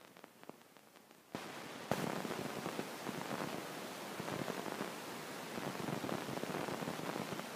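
A few faint ticks, then about a second in a sudden loud, dense crackling rustle that carries on, with one sharp click just after it begins.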